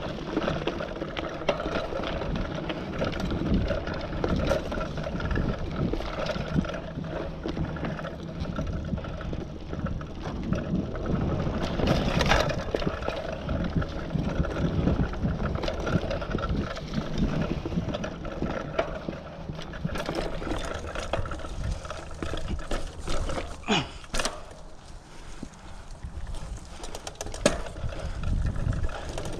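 Mountain bike rolling along a dirt trail: tyres running over dirt and leaf litter, with the chain and frame rattling and sharp knocks as it hits bumps, the loudest about twelve seconds in.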